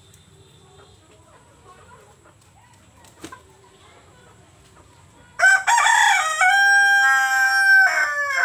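A rooster crowing once, starting about five seconds in: a loud cock-a-doodle-doo with a long held note that falls away at the end.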